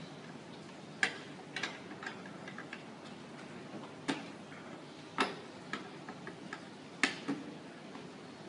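Sharp, irregular clicks and taps of hard plastic, the strongest about one, four, five and seven seconds in, as fingers work at the battery cover of a white plastic device.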